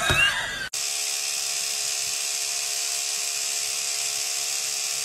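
Electric toothbrush running with a steady, even buzz, starting abruptly under a second in. A brief jumble of other sound comes before it.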